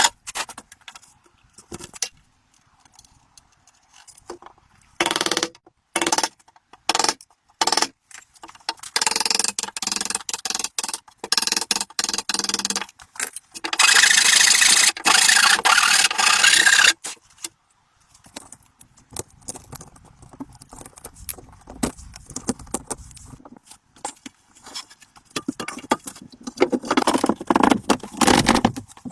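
Tool scraping and rubbing on wood in irregular bursts that start and stop abruptly, the longest run lasting about three seconds in the middle.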